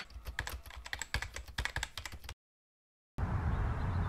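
Quick, irregular light clicks and taps for about two seconds, then a moment of dead silence, then a steady low rumble.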